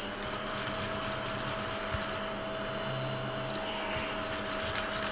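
Small cat-shaped mini desk vacuum switched on and running with a steady whine as it is passed over a card. It is not picking up the scratch-off shavings well.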